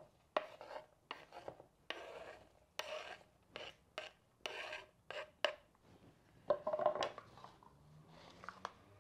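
Wooden spoon scraping diced apple off a wooden cutting board into a clay bowl in a quick series of short scrapes, then stirring the salad in the bowl near the end.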